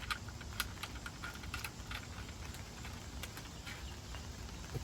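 Faint, irregular light clicks and taps of small hose fittings being handled and fitted: pressure washer quick-connect couplers being put in place.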